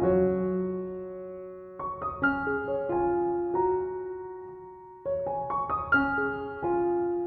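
Background piano music: a slow, gentle melody of sustained notes and chords that fade after each strike.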